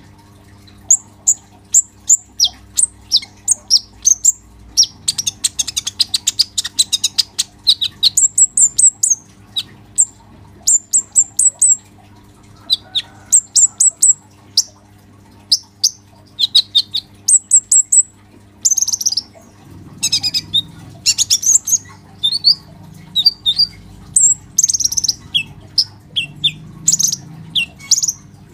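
Male kolibri ninja, a purple-throated sunbird, singing on and on: a fast string of high, thin chirps and short rattling trills with only brief pauses.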